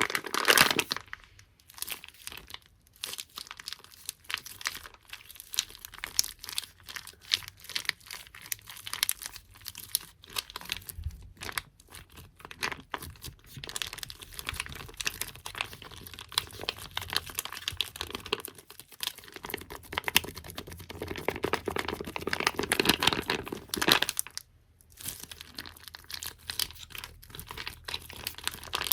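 Close-miked ASMR tapping and crinkling on small objects such as squishy toys and stickers: a dense, irregular stream of soft clicks, taps and crackles, busiest near the start and again a little past the middle, with a brief lull just after.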